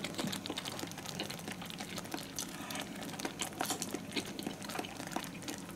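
Quiet eating sounds from a person eating ramen noodles: chewing and mouth noises with many small, irregular clicks.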